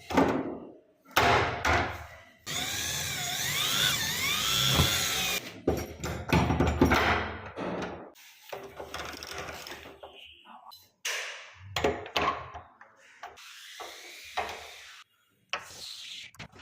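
A power drill runs for about three seconds, its whine rising and falling in pitch, boring into wood. Around it come scattered knocks and taps of wood and hardware being handled.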